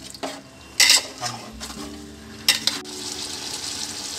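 Metal spoon stirring marinated chicken in an aluminium pot, clinking and scraping against the pot's side, with two louder clinks about a second in and past halfway.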